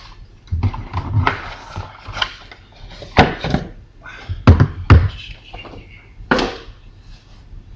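Handling noise from a newly unpacked rechargeable work light and its packaging: several sharp knocks and thumps as pieces are put down on a surface, with rustling in between, the loudest knocks a little past halfway.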